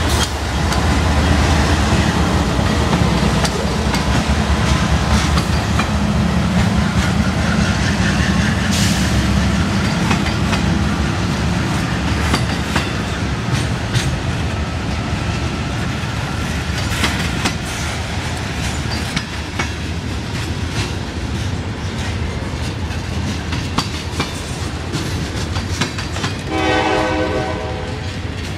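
CSX GE C40-8 diesel locomotives pass close with a heavy, deep engine rumble that eases over the first several seconds as they move away. A long string of boxcars then rolls by with steady wheel noise and rhythmic clicking over the rail joints. A short horn blast sounds near the end.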